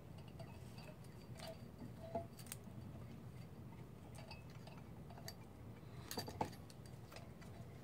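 Scattered light metallic clinks and taps from hands working metal engine parts, with a short cluster of louder clicks about six seconds in.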